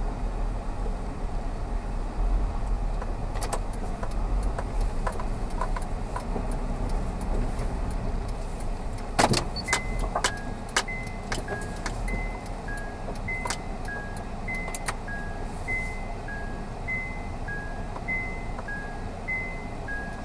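Low, steady rumble of a car moving slowly, heard from inside the cabin, with scattered clicks. From about ten seconds in, a high two-note electronic chime repeats, alternating between its two notes.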